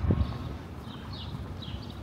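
Footsteps on stone paving, with a couple of heavier thumps at the start, and a short run of bird chirps about a second in.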